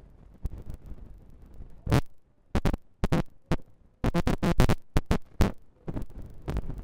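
Storm wind and rain buffeting the microphone: a low rumble broken by a quick, irregular run of sharp crackles and knocks in the middle.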